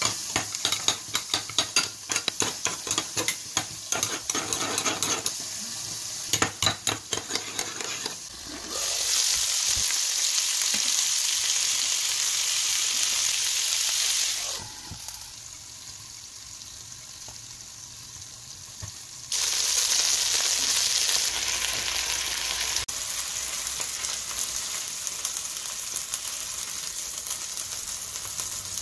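A metal spoon stirring and clinking against a small ceramic bowl, mixing a thick mayonnaise sauce, with quick rapid clicks for the first eight seconds or so. Then chicken thighs sizzling as they fry in a pan: loud for several seconds, quieter for a spell, loud again, and easing to a softer steady sizzle near the end.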